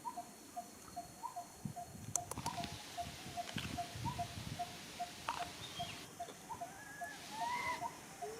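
A bird repeats one short note evenly, about two and a half times a second, with other brief chirps and squeaks scattered over it and soft knocks and rustling underneath.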